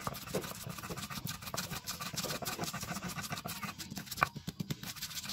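Stone pestle crushing and grinding shallots and garlic in a stone mortar (cobek): quick irregular knocks and gritty stone-on-stone scraping, with one sharper knock about four seconds in.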